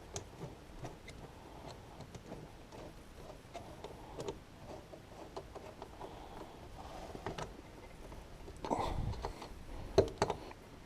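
Scattered light clicks and knocks from hand work on a truck's air filter housing, with a brief louder rustle near nine seconds and a sharp knock about ten seconds in.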